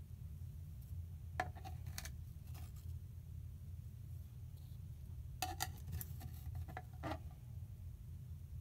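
Kitchen knife blade cutting and scraping through kinetic sand mixed with liquid gallium on a cutting board: a few short, crisp crunches and taps, a pair about a second and a half in, a quick cluster a little past the middle and one more near the end.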